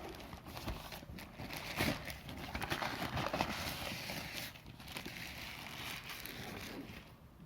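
Packaging being handled: an irregular crinkling and rustling, like plastic wrap, mixed with scattered knocks and clicks, thinning out near the end.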